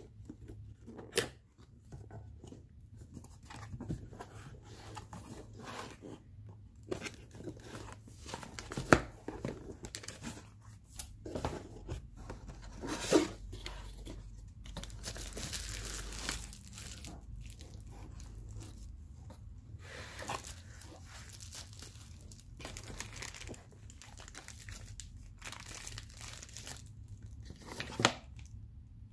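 Unboxing handling: cardboard box flaps and inserts being lifted and scraped, and plastic and bubble-wrap packaging crinkling, with irregular knocks and taps. The loudest knocks come about a second in, near the middle, and near the end.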